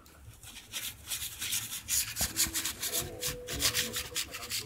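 Fingers scratching and rubbing on a surface in quick, irregular strokes close to the microphone. The scratching starts faint and grows louder after about a second. It is the kind of scratching used to tempt a cat into pouncing.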